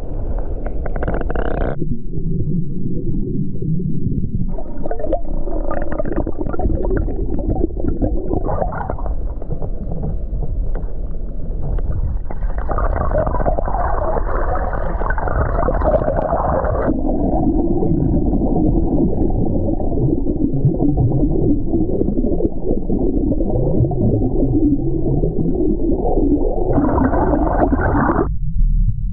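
Underwater water sound slowed down for slow motion: a deep, muffled rumbling and gurgling, its character changing abruptly at several cuts.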